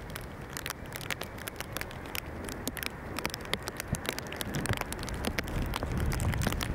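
Jet engine noise from a Boeing 747 heard at a distance, crackling, with a low rumble that grows louder from about five seconds in.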